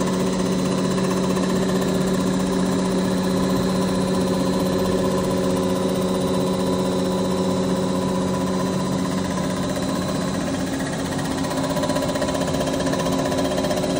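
Milling machine running steadily with a large face-milling cutter head taking a light skim pass of about 0.01 mm across the mating face of a Mercury Verado outboard crankcase cap. The sound is an even, constant machine hum with no rise or fall.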